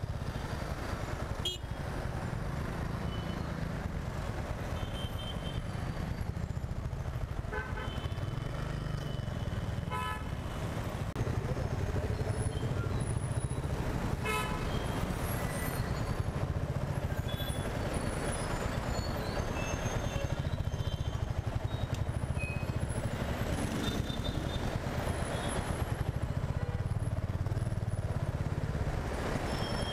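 Dense city traffic at a standstill: motorcycle and surrounding vehicle engines idling in a steady low rumble, with several short horn toots from other vehicles scattered throughout. It grows a little louder about a third of the way in.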